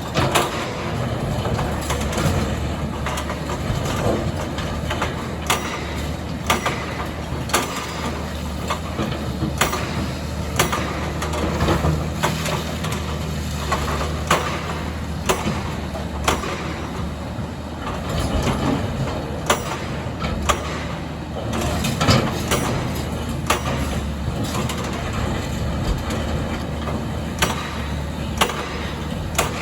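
Volvo EC460B excavator's diesel engine running steadily under load, with frequent sharp clanks and knocks of rock and gravel against the steel bucket as it scrapes up and gathers aggregate.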